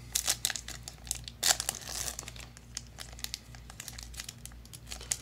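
Foil wrapper of a Yu-Gi-Oh! booster pack crinkling and tearing as fingers rip it open: a run of sharp crackles, loudest about a second and a half in, thinning out in the second half.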